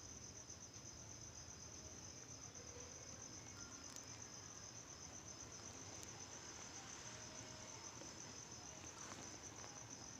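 Faint, steady, high-pitched insect trill, pulsing evenly, over quiet room tone, with a couple of faint ticks.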